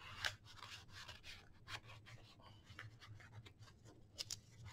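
Faint rustling and scraping of paper as a decorated card is slid into the envelope pocket of a handmade paper journal. A few sharper paper ticks come about four seconds in.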